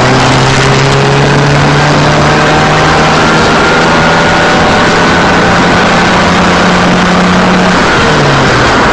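Car engine and road noise from inside a moving car on a dashcam: a steady engine hum under a loud rushing noise, the hum climbing slowly in pitch as the car gathers speed, then falling near the end.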